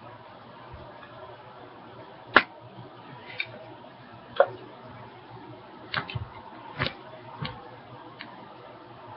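A few scattered sharp clicks and knocks of handling noise, irregularly spaced, the loudest about two and a half and four and a half seconds in, over a faint steady low hum.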